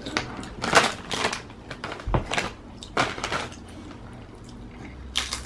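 A child biting and chewing a potato chip: several sharp, crisp crunches spaced irregularly.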